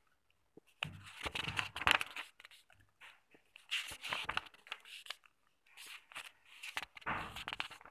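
Pages of a paper textbook being turned by hand: about four bursts of rustling, flapping paper with small clicks.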